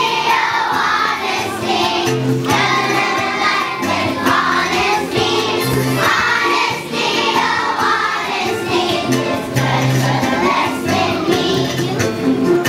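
A choir of young children singing a song in unison over a musical accompaniment with a moving bass line.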